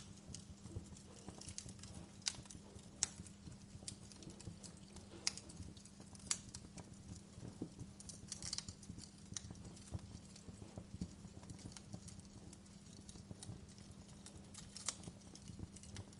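Wood fire crackling in a fireplace: burning logs give off irregular sharp snaps and pops, a few of them louder, over a steady low hum.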